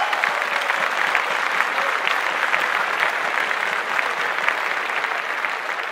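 Audience applauding, a dense patter of many hands clapping that slowly fades toward the end.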